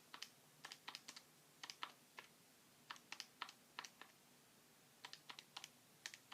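Faint clicks of keys pressed one at a time in short runs, entering the numbers of a long division into a calculator.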